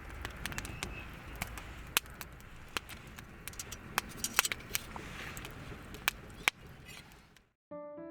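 Campfire crackling, with irregular sharp pops over a low rumble. It cuts off near the end, and piano music begins.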